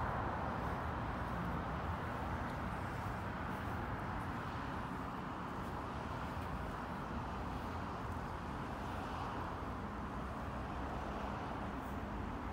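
Steady outdoor background noise of distant road traffic, an even hum with no distinct events.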